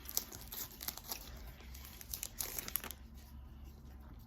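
Crinkling and rustling of Pokémon card packaging being handled, a run of irregular small crackles that thins out in the last second or so.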